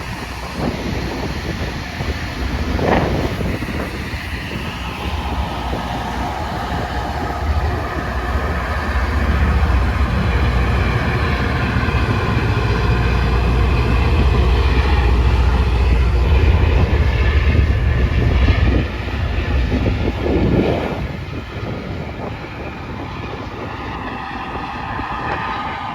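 Rail grinder train on the track, its heavy engines rumbling and its grinding stones working the rail with a harsh, noisy sound. It grows louder toward the middle as it comes closest, then eases off.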